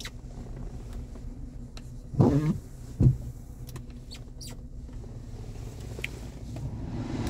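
Mercedes-Benz ML engine idling steadily, with the climate-control blower fan speeding up near the end as the AC is turned up. A single thump about three seconds in.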